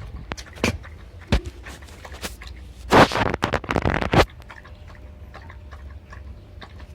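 Wind rumbling on the microphone, with a few sharp clicks early and a loud burst of rustling noise about three seconds in lasting just over a second.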